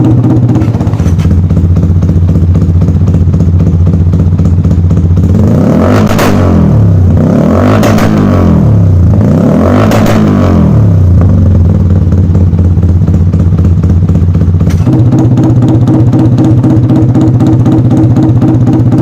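A single-cylinder motorcycle with an aftermarket exhaust runs loud and steady, then is blipped three times in a row, about two seconds apart, each rev rising and falling back before it settles again.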